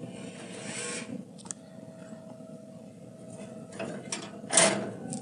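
Handling noise as smoked pork rib racks are lifted off a pellet grill's grate and piled onto a steel platter: rustling and scraping, a few light clicks, and a brief louder noise near the end. A faint steady hum runs beneath.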